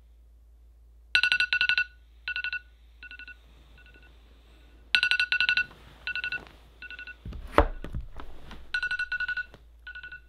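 Smartphone alarm going off: groups of quick, high electronic beeps, each loud group followed by softer echoing repeats, the pattern coming round about every four seconds. A deep thump about three-quarters of the way through.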